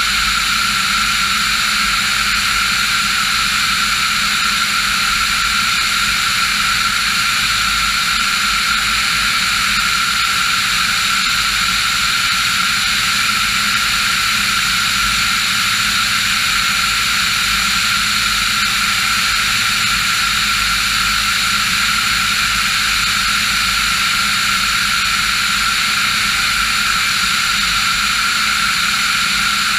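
Diamond DA40 NG's Austro AE300 turbodiesel engine and propeller running at a steady cruise power: a constant, unchanging drone.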